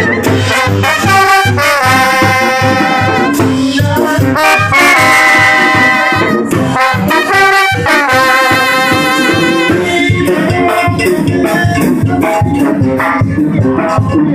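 Live band with trumpets and other brass playing a tune over a steady bass beat; about ten seconds in the horns stop and only the bass and percussion carry on.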